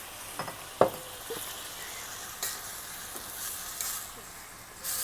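Okra frying in hot oil in a pot, sizzling steadily, with a stirring spoon knocking against the pot, sharply once about a second in.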